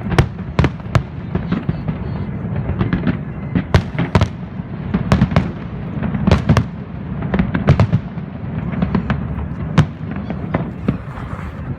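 Fireworks going off: a rapid, irregular run of sharp bangs and crackles over a continuous low rumble.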